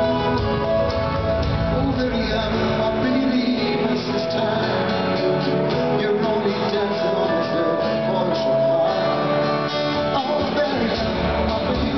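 A live band playing a song: strummed acoustic guitars with keyboard, and a man singing through the PA.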